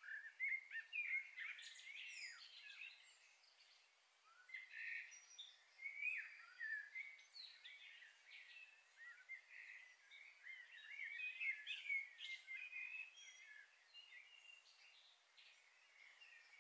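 Small birds chirping and twittering, faint, in a few busy spells of quick rising and falling chirps with short lulls between, thinning out near the end.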